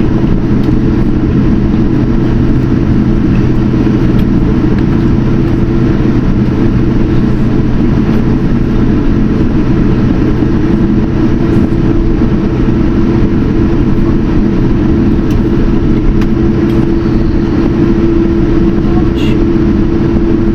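Steady loud rumble of a Boeing 787-10's jet engines and airflow heard from inside the cabin, with a constant low hum running under it.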